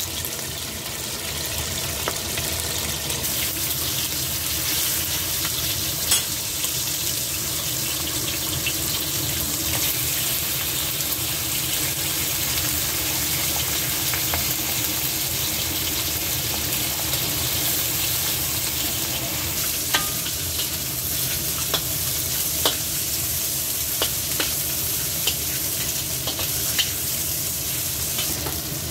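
Pork chops sizzling steadily in hot oil in a wok. From about two-thirds of the way in, a metal spatula stir-fries choy sum stalks in the wok, knocking against the pan in sharp clicks over the frying hiss.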